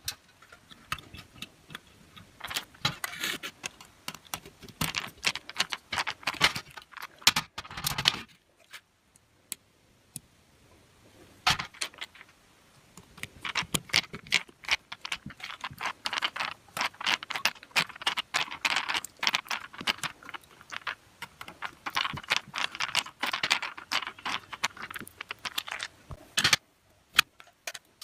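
Small metal parts and hand tools clicking, tapping and rattling on a workbench while a small screw fastens a telescopic antenna to a circuit board. The clatter comes in two busy stretches, with a pause of a few seconds in between.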